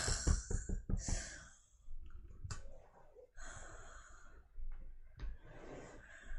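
Soft rustling and light knocks of bedding being shifted for about the first second, then a person lying in bed breathing out slowly, two long breaths or sighs.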